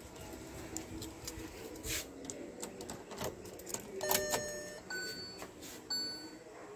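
Faint knocks and clicks inside a Hyundai Venue as the key goes into the ignition, then the car's dashboard warning chime starts about four seconds in, a ding repeating about once a second after the ignition is switched on.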